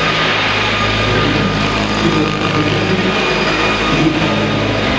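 Large-scale radio-controlled Boeing-Vertol CH-47 Chinook model helicopter flying, its tandem rotors and drive running steadily with a high whine over the rotor noise.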